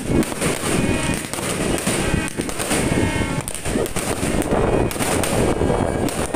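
Fireworks going off in a rapid, continuous stream of pops and bangs as shells launch and burst overhead.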